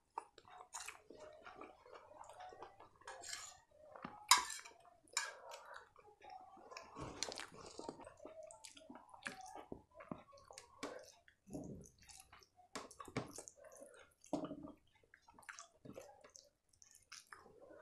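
Close-miked mouth sounds of chewing rice, with wet smacks and small clicks, and the squish of fingers mixing rice on a plate. A sharp click about four seconds in is the loudest sound.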